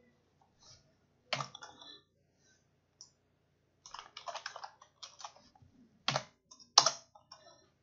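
Computer keyboard and mouse clicks while copying and pasting text. There are separate clicks, a quick run of key presses about four to five seconds in, and two sharper, louder clicks near the end.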